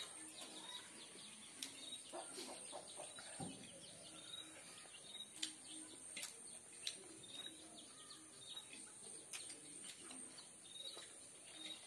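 Faint eating sounds from someone eating rice and chicken by hand: chewing, with sharp lip smacks or clicks every second or two. Birds chirp in short repeated calls in the background.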